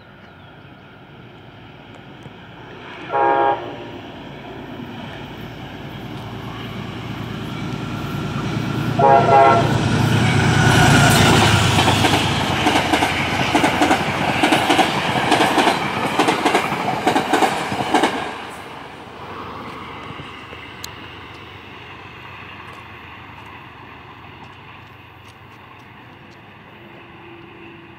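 A Metro-North commuter train sounds two short horn blasts, about six seconds apart, as it approaches. It then rushes past close by with a loud clatter of wheels over the rails, and fades as it moves away.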